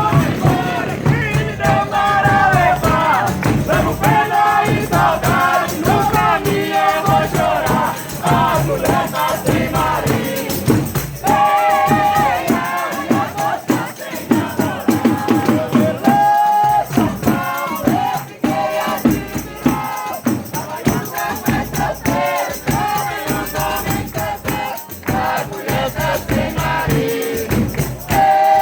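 Folia de Reis ensemble singing a sung verse in several voices over steady hand percussion.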